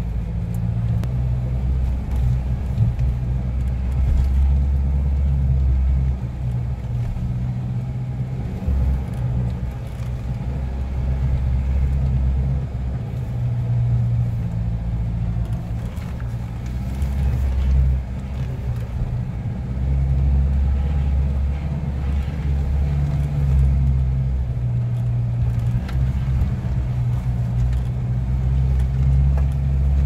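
Vehicle engine running under load, climbing a rough, steep dirt track, heard from inside the cabin; the engine note shifts up and down several times as speed changes.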